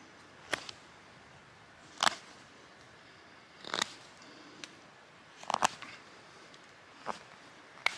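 Mora 510 carbon steel knife slicing shavings off a wooden spoon blank: six short, separate cuts, about one every second and a half.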